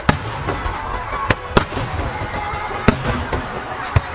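Aerial firework shells bursting in a rapid string of sharp bangs, about five in four seconds, with a low rumble carrying on between them.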